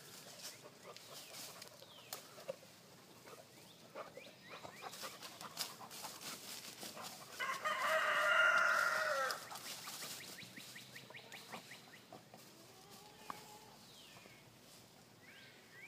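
A rooster crowing once, a single call of about two seconds a little past the middle. Around it, faint crackling and rustling of leaves and branches as a dog pushes through a thicket.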